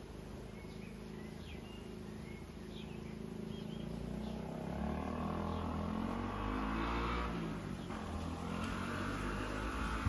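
A motor vehicle's engine drawing nearer, growing steadily louder through the second half, its note shifting up and down in pitch. A few faint short chirps, likely birds, come in the first few seconds.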